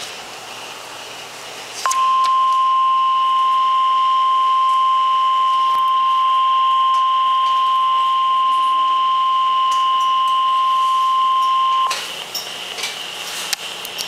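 Weather radio speaker sounding the NOAA Weather Radio 1050 Hz warning alarm tone: one steady, loud, high beep that starts about two seconds in and holds for about ten seconds before cutting off, with radio hiss before and after it. The tone announces a warning broadcast, here a flash flood warning.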